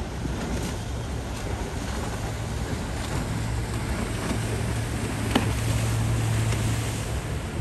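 Low, steady drone of boat engines under a wash of water and wind noise, the drone growing stronger past the middle; a single sharp click about five seconds in.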